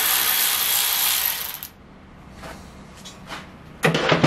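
Powered ratchet running on a subframe fitting, stopping about a second and a half in. A few light clicks follow, then a short metallic clatter near the end.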